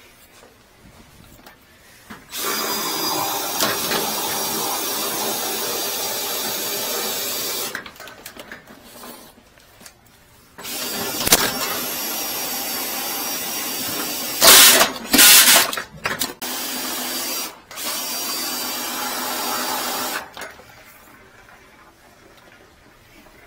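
Flex shaft drain cleaner, a whipping cable spun by a drill, running inside a drain pipe to break up hardened grease. It runs in two long spells of several seconds each with a pause between, and briefly gets louder twice in the middle of the second spell.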